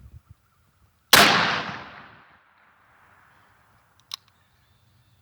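A single .357 Magnum handgun shot about a second in, loud and sharp, with its report echoing away over about a second. A short sharp click follows about three seconds later.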